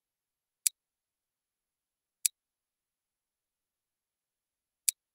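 Three short, sharp single clicks from mouse use on a computer, at uneven spacing: one just under a second in, one a little after two seconds and one near the end, with dead silence between them.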